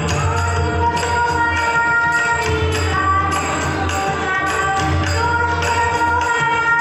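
Devotional bhajan accompaniment: a harmonium playing a sustained melody over tabla and pakhawaj drumming, with a steady metallic jingle keeping the beat.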